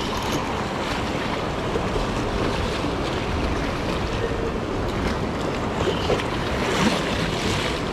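Ocean surf washing on the beach with wind buffeting the microphone, swelling a little near the end.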